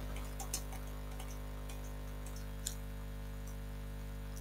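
A few faint, scattered keystrokes on a computer keyboard over a steady low electrical hum.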